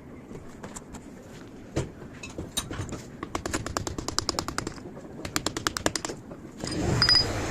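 Quick runs of clicks, about ten a second, twice in a row, from work on a Bosch starter motor. A louder rushing noise starts near the end.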